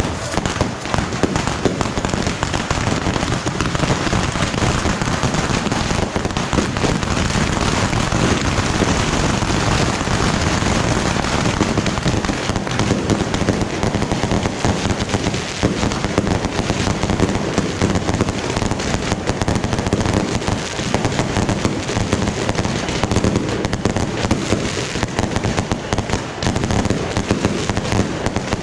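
A dense, unbroken barrage of fireworks, bottle rockets and firecrackers cracking and popping many times a second without a pause, as from a Yanshui beehive rocket launcher.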